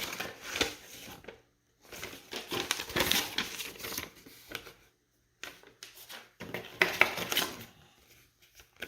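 Paper rustling and crinkling as the instruction leaflet and packaging are handled and flipped through, in several bursts separated by short silent pauses.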